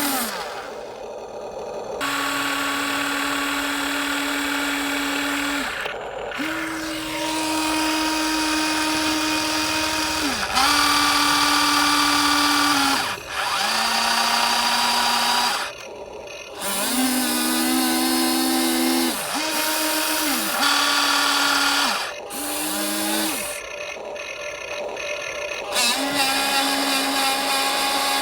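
Small electric motors of a metal RC excavator whining in repeated runs of one to four seconds, about eight times, each starting and stopping with a brief dip in pitch as the machine's functions are worked.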